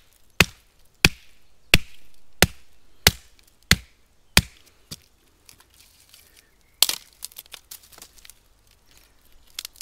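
A hand-held stone striking a dry, hollow dead branch about eight times, evenly at roughly one and a half blows a second, to split it. Nearly seven seconds in comes one sharp crack, followed by small snapping and splintering as the wood is pulled apart.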